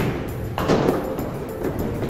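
Music plays throughout. About half a second in, a short clatter sounds as the small bowling ball reaches the pins of the mini bowling lane.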